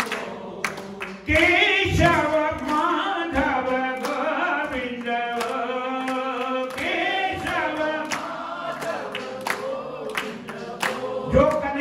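A group of voices singing a Hindu devotional bhajan in chorus, over a steady beat of sharp percussive strikes about two to three a second.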